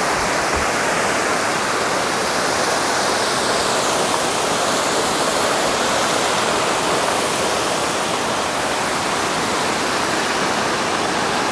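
Small natural waterfall falling with much pressure: a steady, even rush of water.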